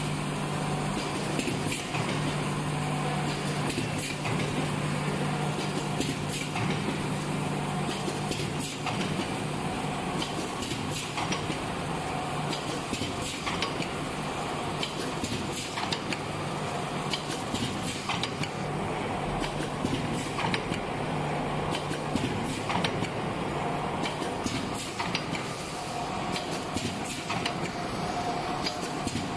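Paper-plastic blister packaging machine running: a continuous irregular clatter of clicks from its moving parts over a steady hum, which drops out about five seconds before the end.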